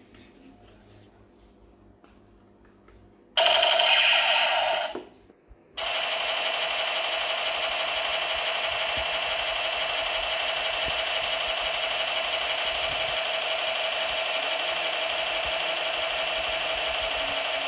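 Toy light gun's electronic sound effect from its small built-in speaker: a loud burst about three and a half seconds in, then after a short break a steady, unchanging effect that runs on at one pitch.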